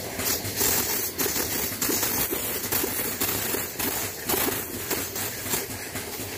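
A steady stream of fluid pouring from a lube truck's coolant hose nozzle into a bucket of foaming liquid, splashing.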